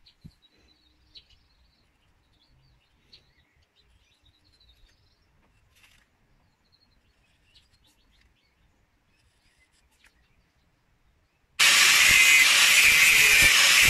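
Near quiet with faint high bird chirps and a few soft handling clicks. About eleven and a half seconds in, an angle grinder starts abruptly, loud and steady with a high whine, cutting into the rusty steel hatchet head.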